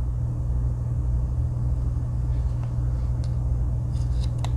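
A steady low hum of background noise, with a few light clicks in the second half.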